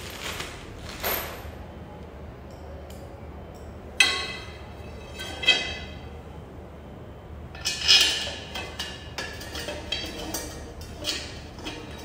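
Metal parts of a clothes stand knocking and clinking against each other and the tiled floor as they are handled. There are three sharper knocks with a brief metallic ring, about four, five and a half and eight seconds in, then a run of lighter clicks.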